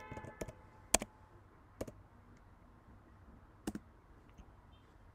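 Computer keyboard keys clicking as Japanese text is typed: a few separate, irregularly spaced keystrokes, faint, with the sharpest one about a second in.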